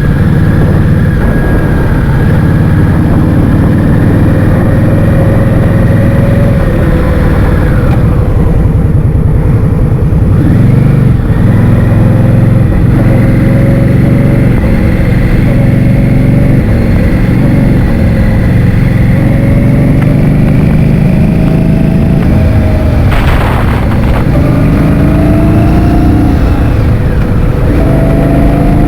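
Heavy wind buffeting on the microphone while riding a motor scooter, over the scooter's engine note, which slowly rises and falls as the speed changes. About 23 seconds in there is a brief hiss.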